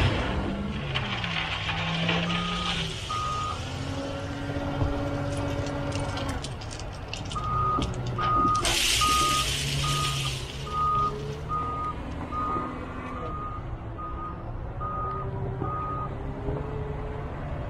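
Hyundai wheel loader working a gravel pile: its diesel engine running and changing pitch as it manoeuvres, and its reversing alarm sounding a run of single-pitch beeps, a couple early on and then regularly, about one beep a second. A loud hiss cuts in for about a second and a half around nine seconds in.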